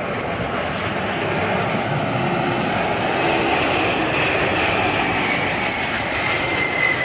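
Antonov An-225 Mriya's six Progress D-18T turbofan engines running as the aircraft flies low on landing approach: a steady jet engine noise with a high whine that slowly falls in pitch through the second half.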